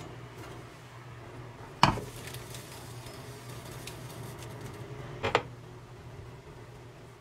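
Fried rice being scraped off a nonstick frying pan onto a ceramic plate with a silicone spatula. There is a sharp clank about two seconds in as the pan is set down, then soft scraping and tapping as the rice is patted into a mound, with another knock about five seconds in.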